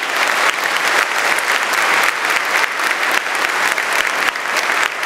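Audience applauding: a dense, steady clapping of many hands.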